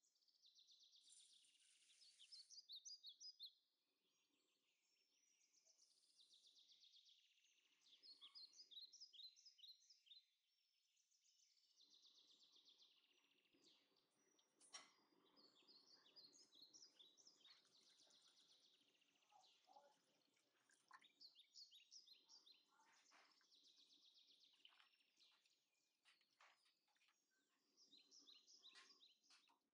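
Faint birdsong: a songbird repeats a quick phrase of high chirping notes every few seconds. A sharp click sounds once about fifteen seconds in.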